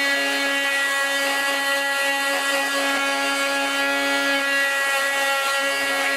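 Bosch AdvancedMulti 18 cordless multi-tool with its delta sanding attachment running at a steady, even whine while sanding the edge of a small wooden block.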